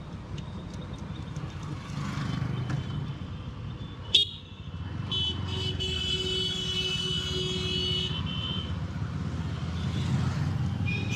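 Motorcycle riding in traffic with steady engine and road rumble; a sharp knock sounds about four seconds in, then a vehicle horn blares steadily for about three and a half seconds.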